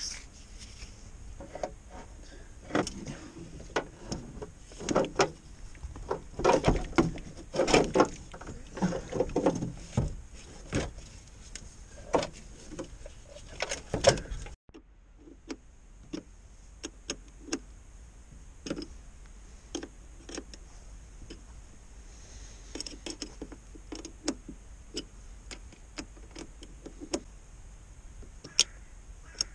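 Irregular clicks, knocks and rustles of hands handling plastic and metal parts around a truck's battery in the engine bay, busy and loud in the first half. Partway through the sound drops away abruptly, then sparser, lighter clicks follow.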